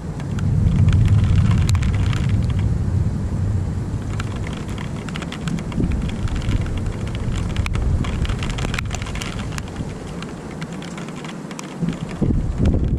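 Rolling thunder: a low rumble swells about half a second in and fades slowly over about ten seconds. Raindrops tick close by throughout.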